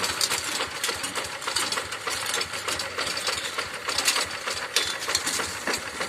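Paddy-field hand tractor's engine running, with fast, dense metallic clattering over a steady hum.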